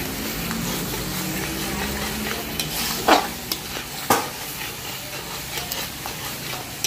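Metal spatula stirring and scraping a thick yogurt-based masala in a kadhai as it fries with a steady sizzle, with a couple of sharper scrapes about three and four seconds in. The masala is being sautéed (bhuna) after the curd went in.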